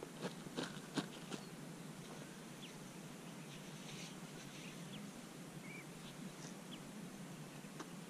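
Faint, short bird chirps scattered over a quiet background. Four or five sharp clicks come in the first second and a half.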